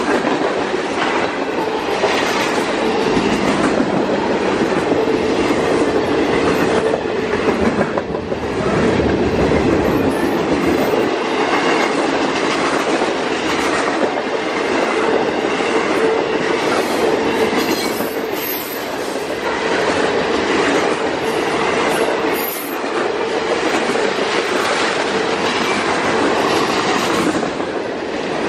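Freight train cars rolling past at close range: a steady rumble and clatter of steel wheels on the rails, with a constant ringing tone under it.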